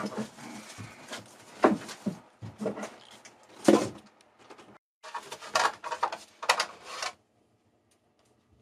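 Irregular knocks, clunks and rustles of handling in a cramped boat engine compartment, a cluster of them between about five and seven seconds in, stopping shortly after.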